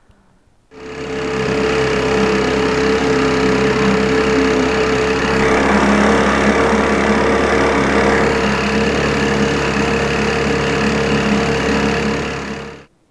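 Veterok-12 two-stroke outboard motor running steadily at speed, driving the boat. The sound cuts in suddenly about a second in and stops abruptly near the end.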